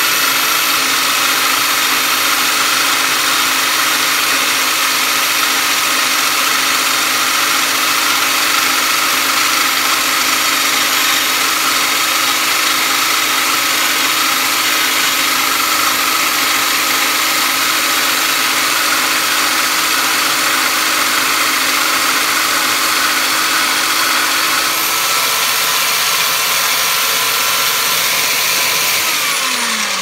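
Vertical band saw running steadily while cutting steel, a constant motor and blade whine. Near the end the saw is switched off and its pitch falls as it winds down.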